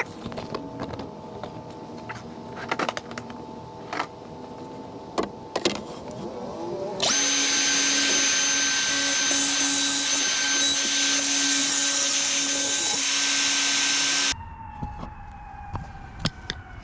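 DeWalt 60 V cordless track saw cutting a T1-11 siding panel. It runs under load with a steady whine for about seven seconds and stops suddenly, and its pitch then falls as the blade spins down. Before the cut there are scattered clicks and knocks from handling the saw and track.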